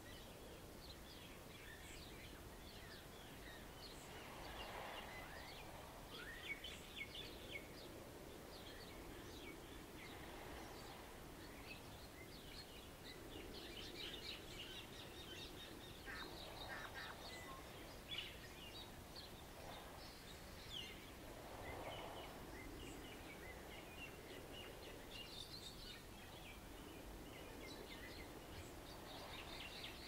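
Birds chirping and calling in a continuous chatter of short notes, with waves washing onto the shore in a soft swell every five or six seconds.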